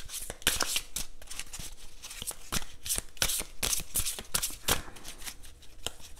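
A tarot deck being shuffled by hand: a quick, irregular run of short rasps and flicks as the cards slide against each other.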